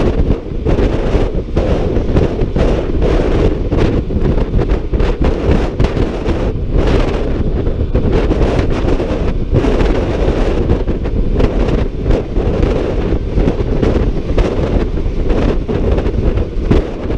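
Wind buffeting the microphone of a moving scooter: a loud, steady low rush that flutters with the airflow, masking the engine.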